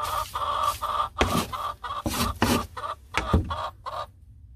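Plastic scoop scraping and rustling through a bed of wood shavings in a series of short strokes, stopping about four seconds in.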